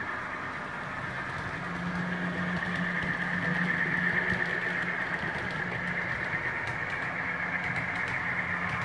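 Recorded machinery sound effect played through the model service station's small speaker: a steady engine-like hum that sets in about two seconds in, over a constant hiss.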